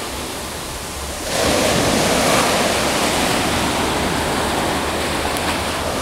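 Mediterranean surf washing on a sandy beach: a steady rush of water, swelling louder about a second in as a wave breaks and runs up the shore.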